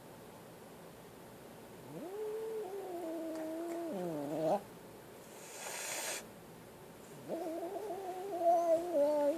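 Frightened kitten giving two long, drawn-out yowls, each wavering and dropping in pitch at its end, with a short hiss between them.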